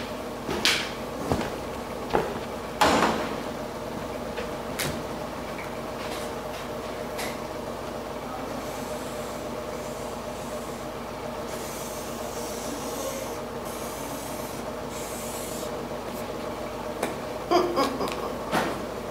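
Felt-tip marker drawing on flip-chart paper: several short scratchy strokes in the first few seconds, a longer stretch of rubbing in the middle, and a quick cluster of strokes near the end, over a steady hum.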